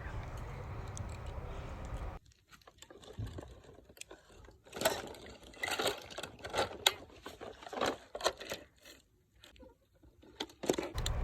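Small plastic toys being handled: scattered clicks and short rattles, busiest in the middle. A steady low hum runs for about the first two seconds, then cuts off suddenly.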